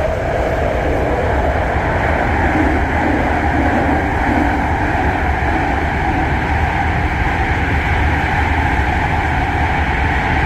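BART train running, a steady rumble with a continuous higher-pitched whine over it.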